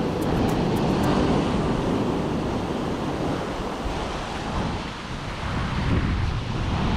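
Sea surf washing onto the beach, with wind buffeting the microphone.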